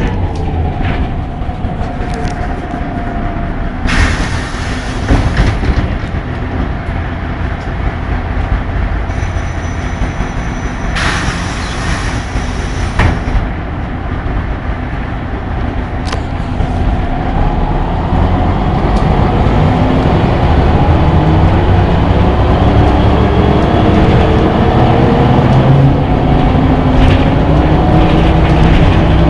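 Ikarus 260 city bus heard from inside while under way: the diesel engine and drivetrain run with a steady low rumble, broken by two bursts of hiss about 4 and 11 seconds in. From about halfway through, the engine note rises in pitch and grows louder as the bus speeds up.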